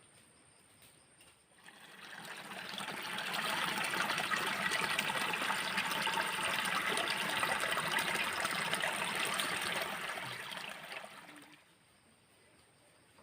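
Running water trickling and splashing, swelling in over a couple of seconds, holding steady, then fading away near the end.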